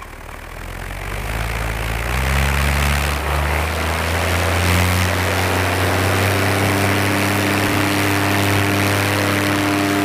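Paramotor engine and propeller throttling up from idle over the first couple of seconds, then running steadily at high power for a foot-launched takeoff run. The motor has a failing clutch.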